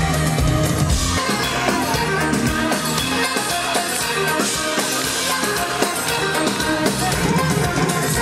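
Live concert music over a loud PA: drums, bass and guitar. The deep bass drops out about a second in and comes back near the end.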